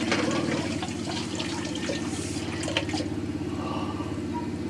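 Sinigang fish soup boiling in a lidded metal pot: a steady bubbling rumble with small pops and clicks.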